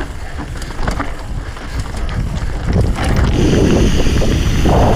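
Wind buffeting the camera microphone over the rumble and crunch of mountain bike tyres rolling on gravel, growing louder about three seconds in.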